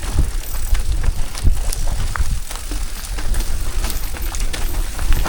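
Bicycle riding over a debris-strewn road: steady wind rumble on the microphone, with scattered clicks and crackles from the tyres and frame.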